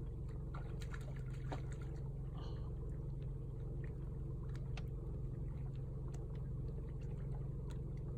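A boat's motor idling with a steady low hum, with faint scattered clicks and light water sounds over it.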